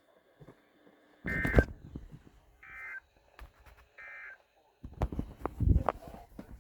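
Emergency Alert System end-of-message signal: three short, buzzy data-tone bursts about 1.4 seconds apart, marking the end of the warning. Loud crackles and thumps of radio noise come with the first burst, and again about five seconds in.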